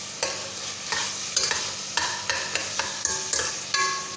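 Minced meat frying dry in a metal pot with a steady sizzle, the water cooked off. A metal spoon scrapes and knocks against the pot about ten times as it is stirred, each stroke with a short metallic ring.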